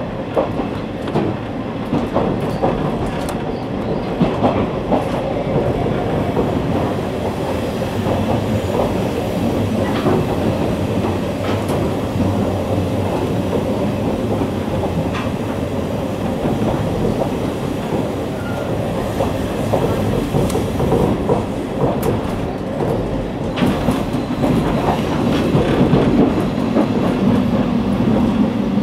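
Running noise inside a KiHa 48 diesel railcar, heard from a seat by the window. The wheels click over rail joints now and then, and a steadier low hum sets in near the end.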